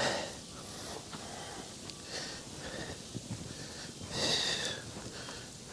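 A man breathing hard from the exertion of clearing snow, with a louder exhale about four seconds in.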